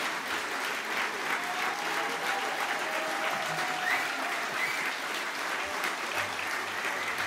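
Large audience applauding steadily, dense clapping with voices calling out over it.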